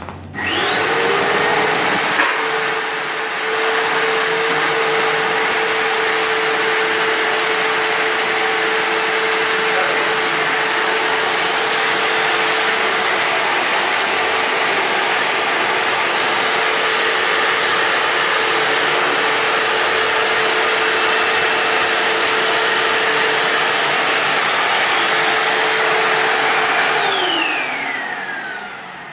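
A vacuum cleaner fitted with a cyclone dust separator is switched on. Its motor spins up to a steady loud run with a whine. About 27 seconds in it is switched off and winds down, the whine falling in pitch.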